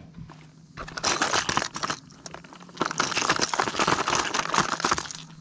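Clear plastic tackle tray full of crankbaits being handled and opened, the hard-bodied lures and treble hooks rattling and clattering against the plastic in two spells, the second longer, about a second apart.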